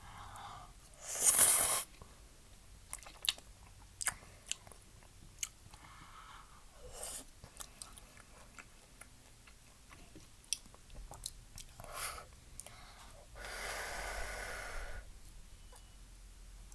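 Close-miked chewing of udon noodles, with small wet mouth clicks, and two noisy slurps: a short loud one about a second in and a longer one near the end.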